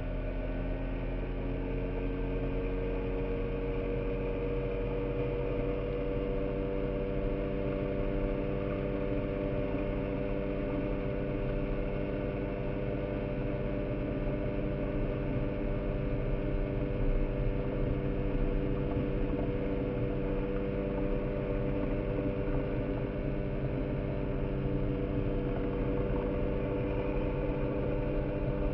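Small boat's motor running steadily, rising slightly in pitch over the first few seconds and then holding an even speed.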